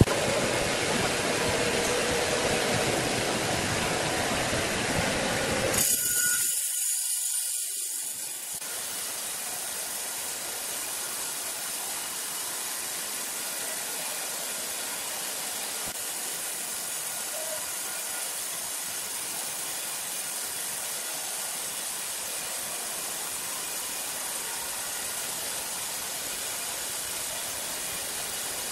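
Horizontal band saw mill sawing through a large log, a steady mechanical sawing noise. About six seconds in it changes abruptly to a quieter, even hiss with faint steady tones.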